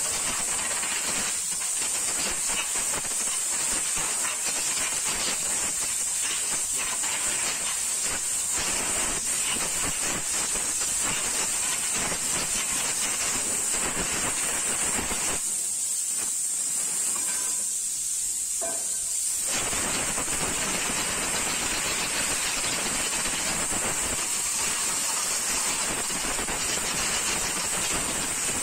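Compressed-air blow gun hissing steadily as it blasts brake dust and dirt out of a car's rear drum brake, over the drum, shoes and backing plate. The blast eases off for a few seconds a little past halfway, then resumes.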